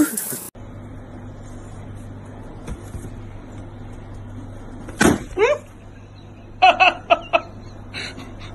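A confetti-filled balloon bursts with a sharp pop, followed at once by a short cry that bends in pitch. A person then laughs in several short bursts.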